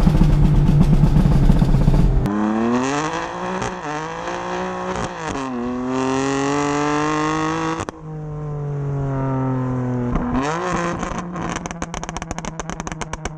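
Tuned BMW M4's twin-turbo straight-six with aftermarket downpipes and filters, heard at the exhaust tips: a rapid crackle at first, then revs rising under acceleration with a dip at a gear change, easing off, and a fast run of pops and crackles on the overrun near the end.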